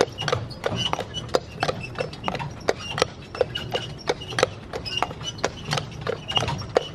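Hooves of a carriage horse clip-clopping on a paved road at a steady walking pace, about three to four hoof strikes a second, heard from the carriage it pulls.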